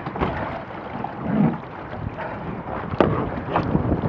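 Water splashing and sloshing around the hull of a Laser 2 dinghy just righted after a capsize, with wind buffeting the microphone. There is a sharp knock on the boat about three seconds in.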